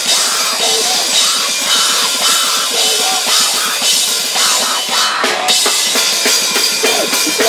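Loud, fast rock band playing live: a drum kit with cymbals drives it, with guitar and a singer's vocals into the microphone.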